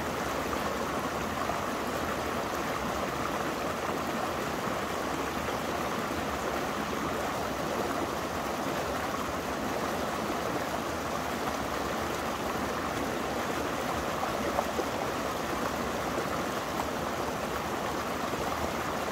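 Small mountain creek running over a rocky cascade: a steady rush of water.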